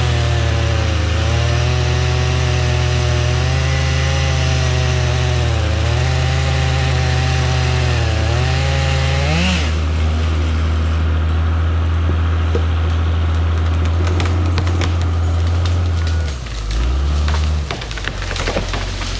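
Chainsaw cutting wood, its engine pitch sagging under load several times and climbing as it comes free about nine and a half seconds in, over a steady lower engine hum. Scattered sharp cracks and snaps follow in the last several seconds.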